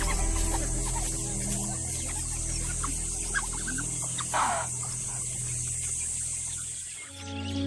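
Night ambience in the African bush: a steady high insect trill with scattered short clucking calls, and a brief rush of noise about four and a half seconds in, over low sustained tones.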